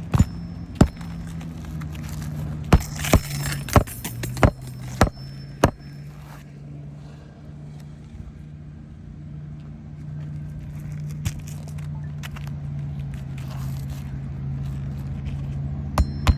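Hammer driving roofing nails into an asphalt shingle: about eight sharp strikes in the first six seconds, some with a brief metallic ring, then another strike near the end. A steady low engine hum runs underneath.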